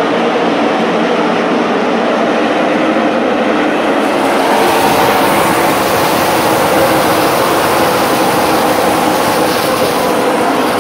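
A pack of NASCAR stock cars' V8 engines running together on the track: a loud, steady, dense engine noise that swells slightly about four seconds in.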